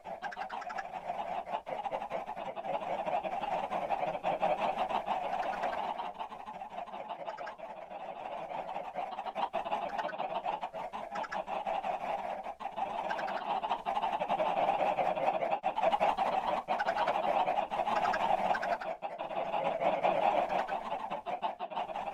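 A large flock of chickens clucking and calling all at once, many voices overlapping in a continuous din that grows louder in the second half.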